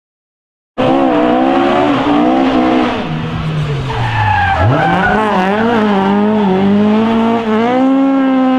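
Ford Escort RS1600 rally car's engine at high revs, cutting in abruptly about a second in. Its pitch falls as the car slows into a corner around four seconds in, then climbs again and holds as it accelerates away.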